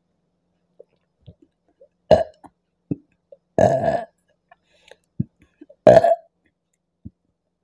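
A woman burping three times, about two seconds in, again at three and a half seconds and near six seconds; the middle burp is the longest. Small faint clicks come between them. The burps are brought up by a carbonated apple drink.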